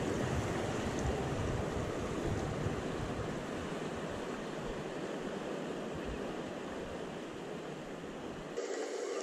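Ocean surf washing against the rocks below, with wind buffeting the microphone in low, gusty rumbles.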